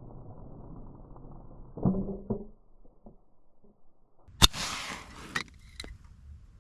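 A BB gun fires once about four and a half seconds in: a sharp crack, followed by about a second of hissing noise and a couple of lighter clicks. Two duller knocks come about two seconds in.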